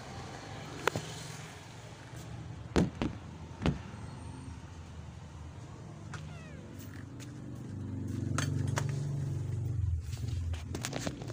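Phone being handled while filming: a few sharp knocks and scattered clicks against the microphone, with a low hum swelling for a couple of seconds near the end.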